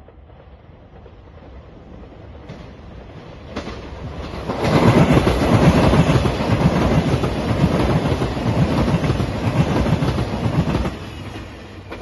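JR Shikoku 2700 series diesel limited express train approaching and passing close by, its engines and wheels running over the rails. It builds gradually, is loudest from about four and a half seconds to eleven seconds in, then falls away.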